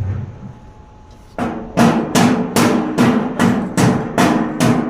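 A steel truck tool box being struck repeatedly: a run of about nine sharp bangs, some two and a half a second, each with a short metallic ring, starting about a second and a half in.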